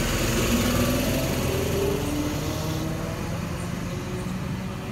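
V-set double-deck electric intercity train pulling away from the platform, its motors whining upward in pitch as it gathers speed. The noise fades as the train moves off.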